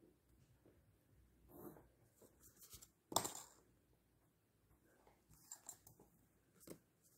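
Faint handling of a plastic ruler and a pencil on a paper workbook: light scratches and clicks as the pencil draws and marks a line along the ruler. A single sharp tap about three seconds in is the loudest sound.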